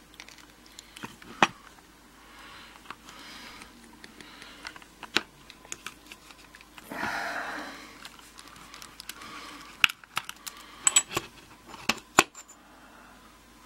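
Small metal clicks and taps from a screwdriver working the grub screw and top screw out of a brass padlock body, with the lock being handled and parts set down; a cluster of sharper clicks comes near the end, and a short soft rasp about seven seconds in.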